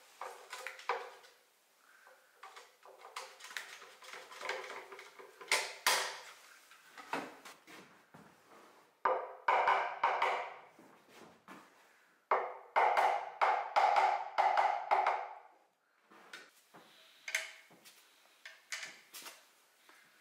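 Hand woodworking on small wooden parts: a series of sharp wooden taps and knocks, with two longer stretches of scraping or sawing, one about nine seconds in and a longer one about twelve seconds in.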